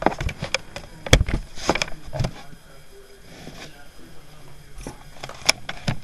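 Handling noise from a handheld camera being moved about: a run of sharp knocks and clicks, the loudest about a second in and another near the end, with rustling between.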